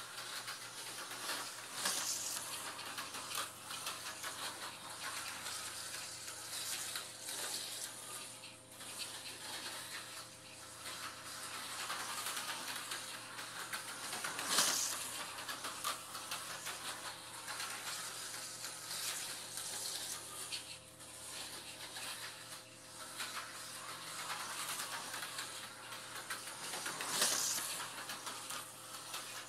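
HO-scale Tyco slot car on a 440x2 chassis running laps on plastic track: a steady whirring hiss of its small electric motor and pickup shoes that swells and fades as it circles, loudest each time it passes close, about every twelve seconds.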